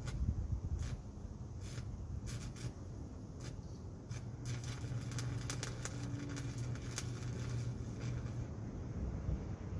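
Welding on a mini chopper's frame: irregular sharp crackles of the arc, growing dense for a few seconds about halfway through, over a low steady hum while the arc is struck.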